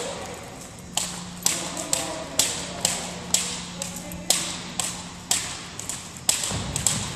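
Long turning jump ropes slapping the hardwood gym floor in a steady rhythm, about two slaps a second, starting about a second in as a jumper skips in.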